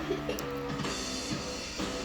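Background music from a TV commercial, guitar and drums with a steady beat.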